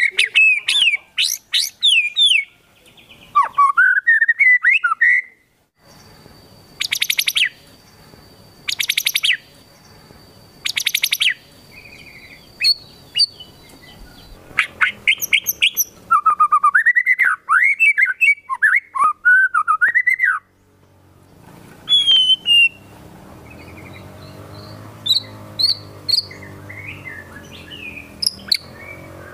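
White-rumped shama singing a loud, varied song of rising and falling whistled phrases mixed with imitated calls, including three short rapid trills about two seconds apart, typical of the kapas tembak 'shooting' imitation.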